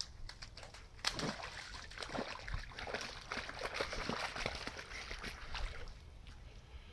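Dog splashing and pawing in a shallow muddy puddle: irregular wet slaps and sloshes, busiest from about a second in and easing off near the end.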